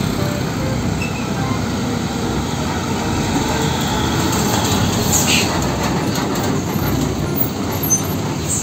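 Heavy fuel tanker trucks driving past, a steady rumble of diesel engines and tyres on the road, with a brief hiss about five seconds in.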